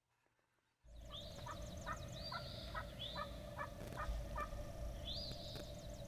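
Wild turkey calling in a quick series of short notes, about three a second, with songbirds singing over it. It starts abruptly about a second in.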